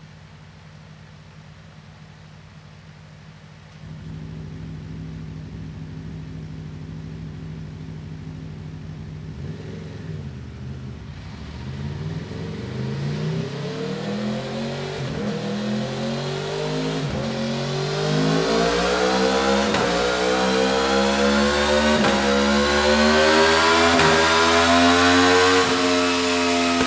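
Aprilia V4 motorcycle engine on its stock exhaust, idling steadily at first. From about ten seconds in the revs climb steadily and smoothly to high rpm, getting louder, and they begin to fall away near the end.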